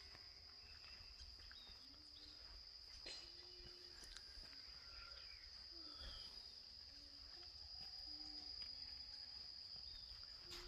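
Faint, steady high-pitched insect trill that runs without a break, over quiet outdoor background noise.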